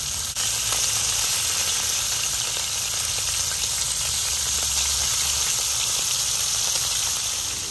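Sunflower oil and pieces of salo (cured pork fat) sizzling loudly in a hot pan. The sizzle steps up in loudness about half a second in, then holds steady.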